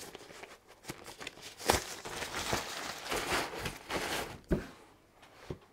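Rustling and crinkling of a foam protective sleeve and cardboard box as a network switch is unwrapped and lifted out, with two knocks, one about two seconds in and one near the end.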